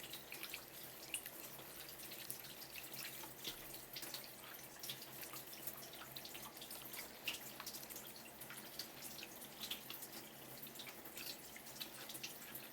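Faint, irregular dripping and small ticks of kitchen water, over a low steady hum.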